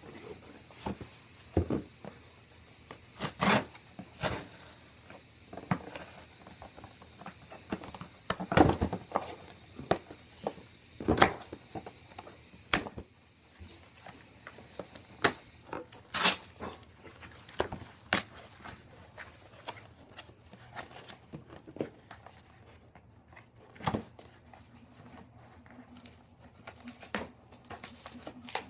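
A shipping package being opened by hand: irregular tearing, crinkling and rustling of packaging, broken by scattered sharp crackles and knocks.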